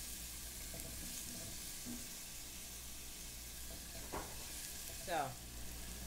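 Chopped fresh garlic sizzling steadily in olive oil in a saucepan, stirred with a silicone spatula. It is a gentle sauté sizzle, the pan hot enough to sizzle but not so hot as to burn the garlic.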